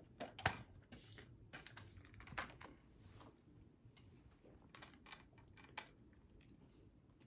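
Scattered light clicks and taps from a metal Blu-ray SteelBook case being handled and opened, the sharpest about half a second in and a small cluster around five seconds in.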